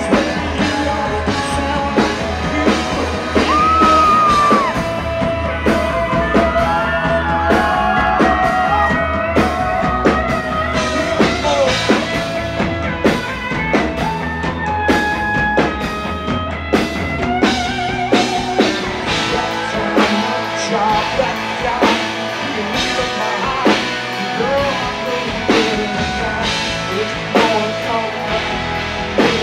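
Live country band playing, with a man singing lead over drum kit, bass and guitars.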